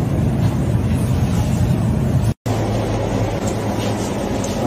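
A steady low rumble that drops out completely for a moment about two and a half seconds in, then carries on the same.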